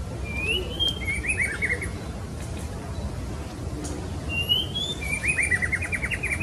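Female white-rumped shama calling: two phrases about four seconds apart, each a short upward-sliding whistle followed by a quick run of short falling notes.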